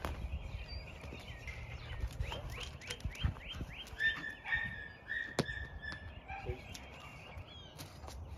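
Songbirds chirping: a fast run of short sweeping notes, then repeated clear whistled notes, with a few sharp clicks and a low rumble underneath.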